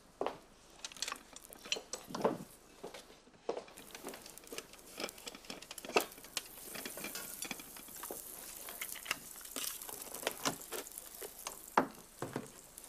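Margarine spooned into a hot pot begins to sizzle about halfway through, the hiss building toward the end, with scattered clicks and scrapes of the spoon against the pot and the margarine tub.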